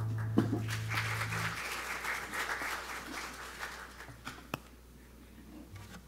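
The last acoustic guitar chord of a song rings on and is damped about a second and a half in, while the congregation applauds briefly, the clapping fading out over about four seconds. A single sharp click near the end.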